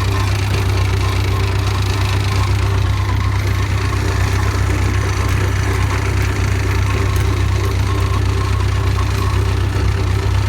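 Massey Ferguson 130 tractor engine running steadily, with no change in speed.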